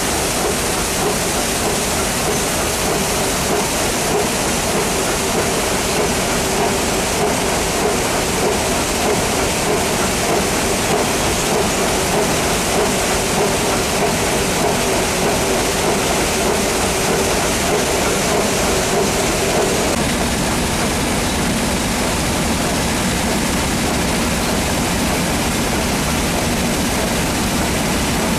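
Iron ore processing plant machinery running: a loud, steady din of crushed ore rattling through a rotating drum, screens and conveyors, with water spraying onto the ore. About two-thirds of the way through the mix changes and a lower steady hum comes in.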